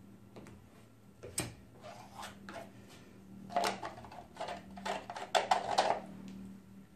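Plastic paint cup handled while pouring: light clicks and taps, one sharper click about a second and a half in, then a quick run of clicks over a couple of seconds near the end.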